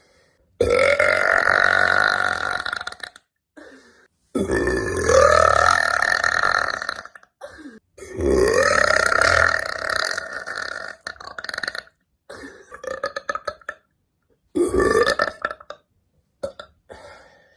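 A woman burping, deep and bassy: three long, drawn-out burps of about three seconds each, then several shorter, gurgly ones near the end.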